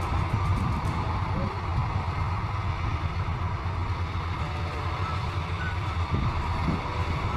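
Bimo 102 Maxxi combine harvester running steadily: a constant low engine hum with machine noise over it.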